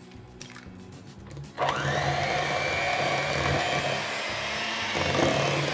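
Electric hand mixer switched on about a second and a half in, running at a steady whine as its beaters mix an egg into thick cream cheese batter in a glass bowl.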